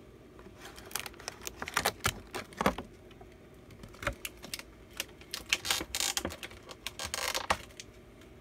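Clear plastic blister packaging being handled, giving irregular crinkles and clicks, with longer stretches of crinkling near the end.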